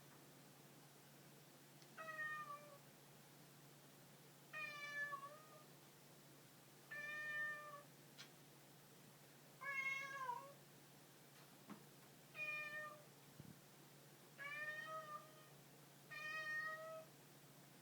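Domestic cat meowing repeatedly: seven short meows, about one every two and a half seconds.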